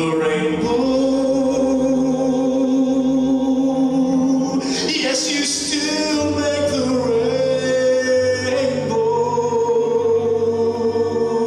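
A man singing a Christian ballad into a microphone, holding long notes of several seconds each, with a brief run of shorter notes about five seconds in, over backing music.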